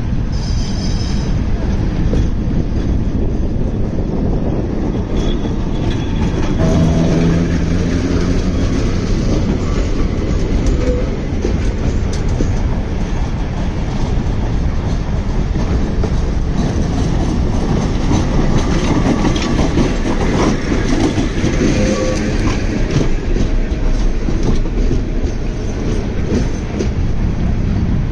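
Tram running on its rails: steady, loud wheel-on-rail running noise.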